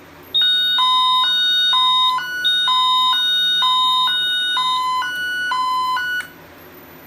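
A System Sensor speaker strobe sounds a voice panel's high-low evacuation tone: a high note and a low note alternate about twice a second for roughly six seconds, then cut off suddenly. Over most of it a steady, higher smoke-detector sounder tone plays, with one short gap.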